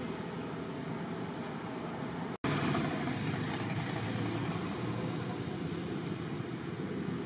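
Steady outdoor background rumble of distant road traffic. The sound drops out completely for an instant about two and a half seconds in.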